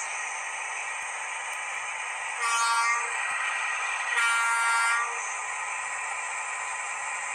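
Sound module of a 1:50 scale model truck playing a thin, hissy simulated engine running sound with no bass, with two air-horn fanfare blasts, about two and a half and four seconds in, the second a little longer.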